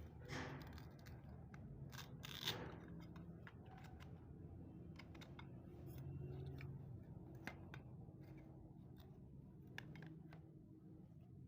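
Faint handling noises: scattered light clicks and two brief rustles, about half a second and two and a half seconds in, over a low steady hum.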